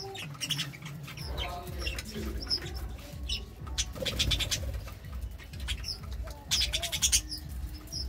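Budgerigars chirping: short high chirps and quick chattering runs scattered through, over a low rumble that starts about a second in.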